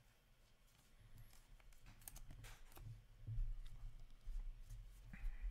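Upper Deck hockey trading cards being handled and set down on stacks, giving a few faint light clicks and rustles over a steady low hum, with soft low bumps near the end.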